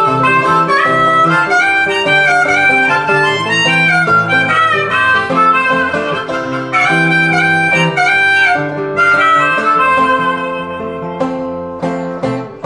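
Harmonica solo played over a strummed acoustic guitar. Near the end the harmonica drops out and the guitar carries on alone.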